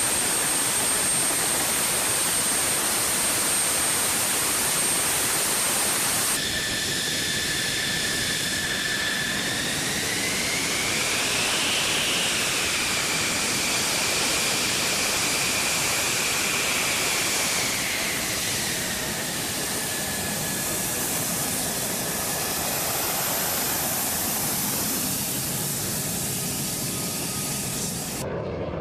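F-16 Fighting Falcon's jet engine running on the ground: a loud, steady rush with a high whine. After a cut about six seconds in, the whine rises in pitch around ten seconds in and settles back down by about eighteen seconds, then the sound cuts off just before the end.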